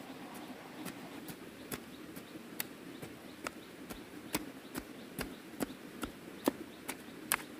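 Rhythmic chopping: a hand tool striking evenly, about two and a half times a second, each strike short and sharp.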